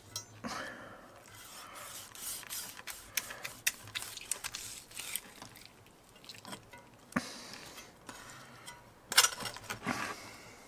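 Knife cutting through the skin of a roast pork knuckle, with irregular short scrapes and clicks of the blade, the sharpest one about nine seconds in.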